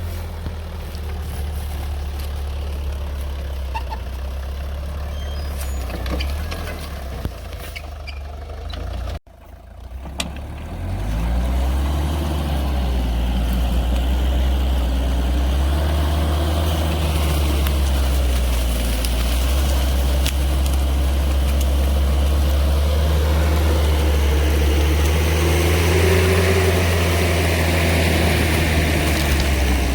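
Engine of a homemade rotary tiller running steadily. After an abrupt break about nine seconds in, it runs louder, with a wavering pitch.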